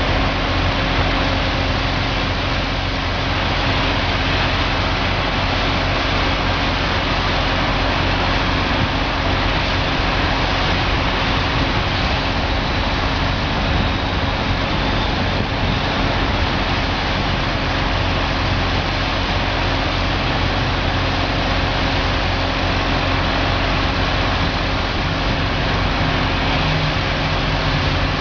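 Engine-driven pressure washer running steadily under load, a constant engine drone with a dense hiss over it.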